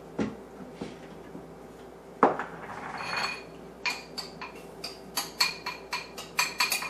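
Small bowl knocked and tapped against a blender jar to shake a dry spice rub into it: two separate knocks, then a quick run of sharp clinks over the last few seconds.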